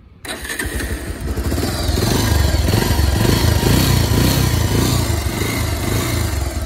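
Bajaj Pulsar 180's single-cylinder four-stroke engine catching at once on the electric self-starter and running steadily, getting louder over the first couple of seconds. The owner calls it very smooth, with no engine noise, unusual for a ten-year-old Pulsar.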